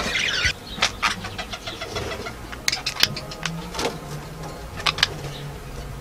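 Baby budgerigar squawking for about the first half second, then short scattered chirps and clicks, over a faint low steady hum.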